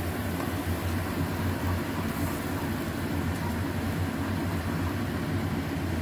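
Steady low rumble of a lit gas stove burner under a small saucepan of simmering sauce, with a spatula stirring in the pan and making a few faint scrapes.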